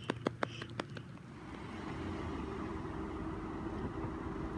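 A quick run of sharp clicks in the first second, then a car approaching, its engine and tyres on the asphalt growing steadily louder.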